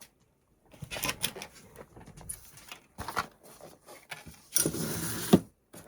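Small clicks, taps and rustles of craft supplies being handled on a tabletop, with a louder scraping rub lasting just under a second near the end.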